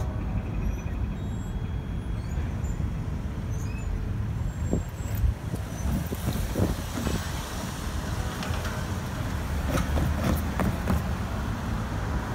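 Road traffic at a railroad grade crossing: cars driving over the tracks over a steady low rumble, with a few short knocks around the middle and again near the end.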